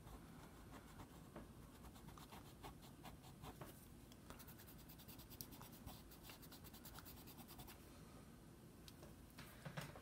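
Faint, quick scratchy strokes of a slim pen-style eraser rubbing over chalk pastel on toned paper, tidying stray pastel at the drawing's edges.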